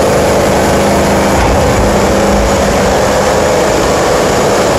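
Loud, steady din of a ship's engine room: running engines and machinery making an even roar with a constant low hum.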